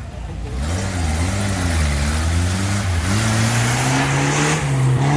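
Off-road vehicle's engine revving, its pitch rising and falling over the first few seconds, then holding steadier and a little higher.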